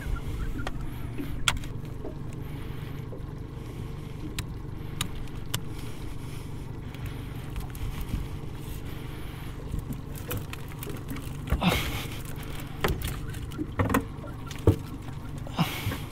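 A wire-framed mesh redclaw pot being handled and emptied in an aluminium boat: scattered clicks, knocks and rattles of the frame and mesh, with brief rustling bursts about twelve seconds in and near the end, over a steady low rumble.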